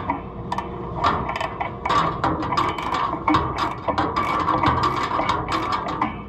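Ratchet wrench clicking in quick, irregular runs as a bolt is turned, easing off the tension on a combine head's gathering chain.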